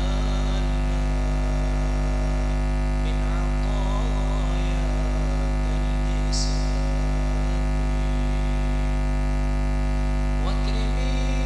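Loud, steady electrical mains hum with many overtones on the sound-system line, with faint voices drifting in and out and a short hiss about six seconds in.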